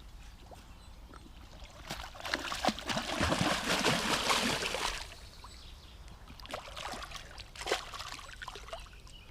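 Water pouring and splashing with small knocks of handling, loudest between about two and five seconds in, then fading to scattered drips and clicks.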